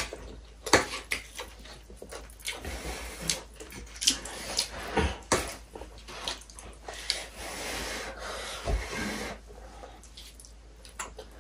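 Two people eating instant noodles: slurping and chewing, with scattered light clicks of a fork and chopsticks against plates.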